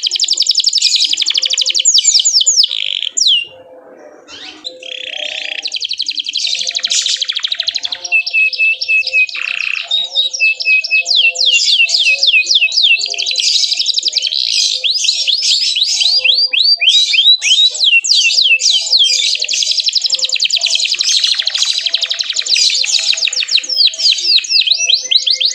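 Domestic canary in full song: long fast trills of high, downward-sweeping notes and buzzy rolls, with a short break about three seconds in before the song resumes.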